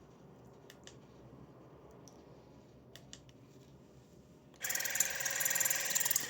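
A few faint handling clicks, then about four and a half seconds in an electric water flosser switches on loudly: its pump buzzes with a fast pulsing water jet that keeps going.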